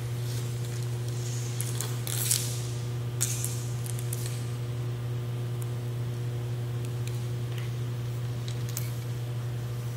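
Steady low hum throughout, with a few short hissing, scraping sounds about two and three seconds in.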